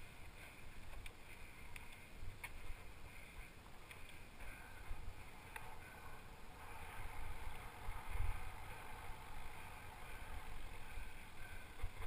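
Orange Alpine 160 mountain bike rolling fast down a rough moorland trail: wind buffets the microphone with a low rumble, over steady tyre and trail noise. Scattered clicks and rattles come from the bike over the bumps, with the hardest jolt about eight seconds in.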